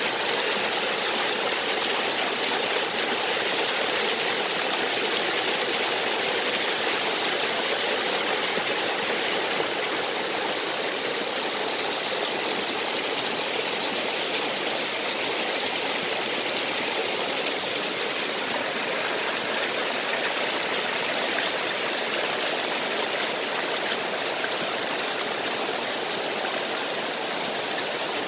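Stream water rushing and splashing over a small waterfall, a steady even rush without change.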